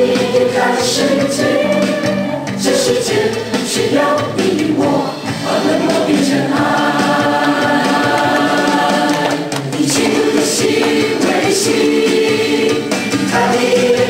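A group of people singing a Chinese-language worship song together.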